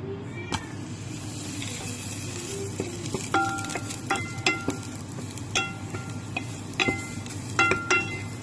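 Ginger slices sizzling steadily in hot oil in a pot. About three seconds in, light plucked-string background music starts, with short ringing notes.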